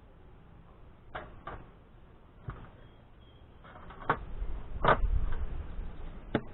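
Wooden beehive parts being opened with a hive tool: a handful of sharp knocks and clicks, the loudest about five seconds in, over a low rumble of handling.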